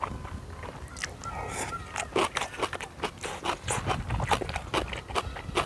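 Close-up slurping and chewing of spicy instant ramen noodles: a fast, irregular run of wet smacks and slurps. A low rumble lies underneath and grows stronger near the end.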